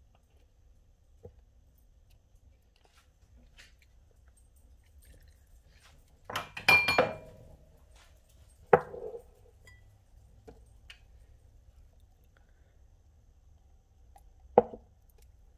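A few scattered kitchen handling sounds of a spatula against a tub and a glass: a short clatter about halfway through, a sharp knock a couple of seconds later, and one more sharp clink near the end.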